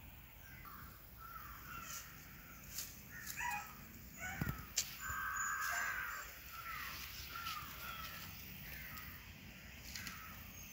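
Crows cawing repeatedly, with a longer rasping caw about halfway through and other short bird calls around them. A few sharp clicks sound near the middle.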